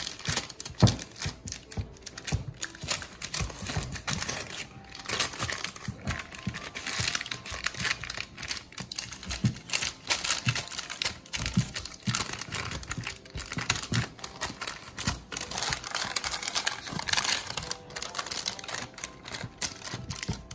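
Parchment paper crinkling and rustling in a baking pan, with many small irregular taps and clicks, as shortbread dough is pressed into it by hand.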